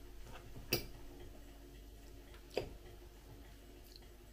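Metal spoon clinking twice against a ceramic soup mug while scooping soup, two short sharp clicks about two seconds apart.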